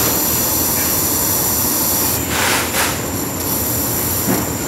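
Powered silicone caulking gun running steadily while it dispenses a bead of silicone, a continuous high hiss with a brief louder surge a little past two seconds in.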